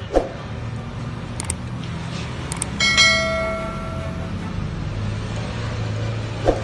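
A single metallic clang about three seconds in that rings out like a small bell for about a second and a half, from steel vise grip locking pliers knocking against the steel storage rack as it is handled. A steady low hum runs underneath.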